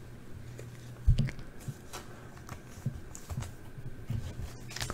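Trading cards and foil card packs being handled on a tabletop: a soft thump about a second in, then light scattered taps and rustles, over a steady low hum.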